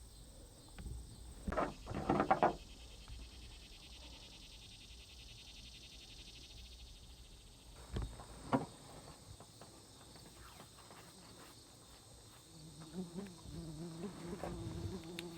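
Insects trilling steadily, with a few sharp clicks about two seconds in and twice more about eight seconds in; a low steady hum begins near the end.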